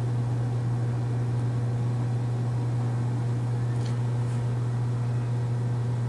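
A steady low hum over a faint hiss, with two faint clicks about four seconds in.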